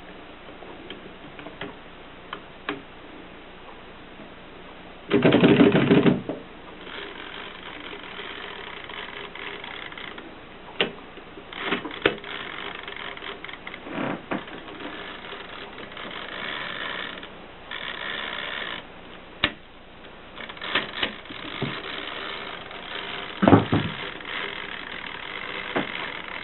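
Mercedes typewriter mechanism being worked: scattered clicks, a loud rattling burst about five seconds in, then stretches of steady mechanical whirring broken by sharp clacks, with another loud clack near the end.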